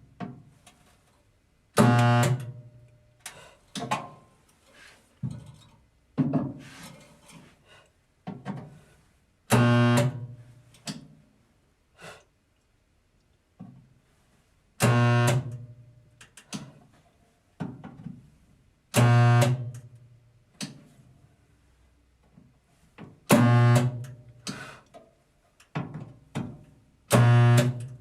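Gun-type spot welder firing a series of welds, each a loud, steady electrical buzz lasting under a second. There are six strong welds a few seconds apart, with shorter, fainter buzzes and knocks between them.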